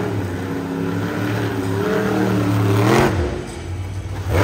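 Monster truck engine revving hard in the arena, its pitch climbing and wavering to a peak about three seconds in, then falling off sharply as the throttle is cut. A short burst of noise comes at the drop and again near the end.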